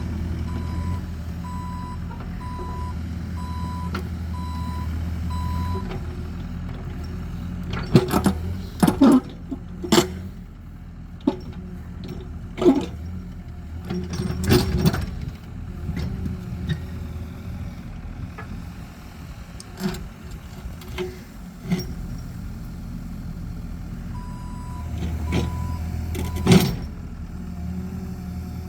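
Excavator diesel engine running under load, with its travel alarm beeping about once a second at the start and again near the end. Sharp clanks and knocks of the steel bucket working against rock come in a cluster from about eight to fifteen seconds in, with one more loud knock near the end.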